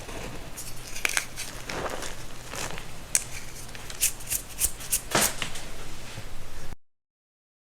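Homemade baking soda being crushed and crumbled: soft crackling and crunching with a run of sharp clicks, cutting off suddenly near the end.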